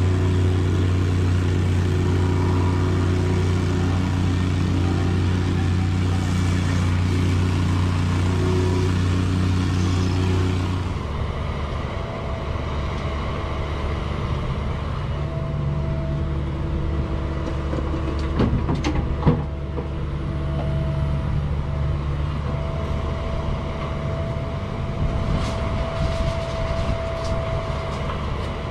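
Heavy equipment engine running steadily with a deep, even drone. About eleven seconds in the sound changes abruptly to a rougher engine note with a steady high tone on top, and a few short clanks come in the middle and near the end.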